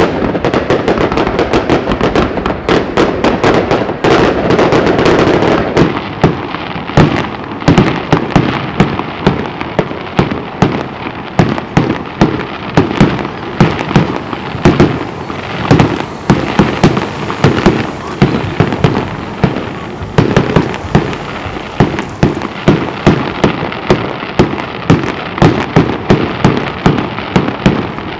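Aerial fireworks going off in a rapid barrage: a dense, almost continuous crackling and banging for the first several seconds, then sharp separate bangs several times a second.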